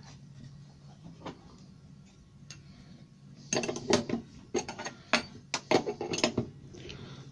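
Steel spanner clinking and clicking against a router's collet nut and insert plate as a small router bit is tightened into a quarter-inch collet. A few faint clicks come first, then a quick run of clinks in the second half.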